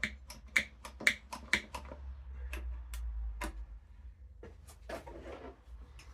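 A run of sharp clicks and light knocks from tools and parts being handled, quick for the first couple of seconds and then sparser.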